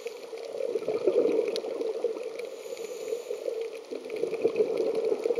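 Muffled underwater bubbling and water noise, a gurgling wash that swells and eases unevenly.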